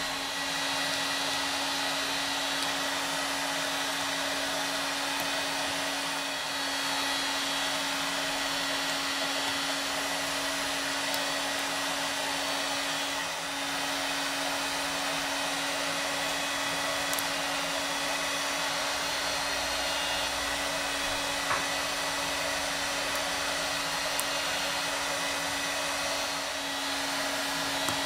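Steady whir of a small blower or fan motor, running without a break, with a constant low hum under it.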